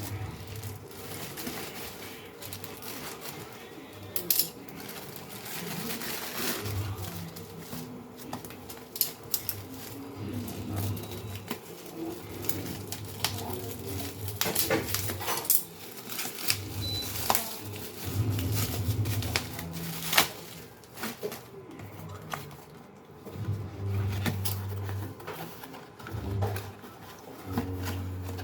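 Scattered clicks, taps and knocks of a boxed crystal ball night light and its packaging being handled and opened, over a low, uneven background hum.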